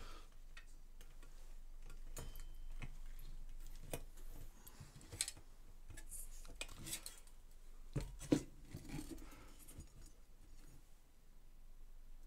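Scattered light clicks and knocks from handling a circuit board with a finned aluminium heatsink as it is turned over and set down on a wooden workbench. The loudest knocks come about eight seconds in.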